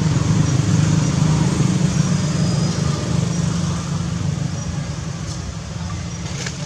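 A steady low rumble that eases off gradually over the last few seconds, with a few faint, short, high chirps above it.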